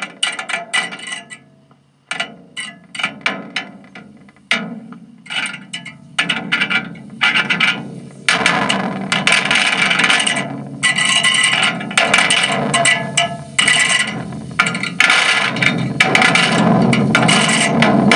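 Coiled aluminium shaving picked up by a contact microphone and played through an RMA Mudlark fuzz pedal: a loud, distorted crackle of scrapes and knocks, choppy with gaps at first, turning into a dense, continuous fuzzed noise from about eight seconds in.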